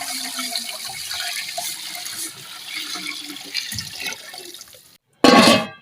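Water bubbling and splashing in a large cooking pot, a steady watery hiss full of small pops. It cuts off about five seconds in, and a short loud sound follows just before the end.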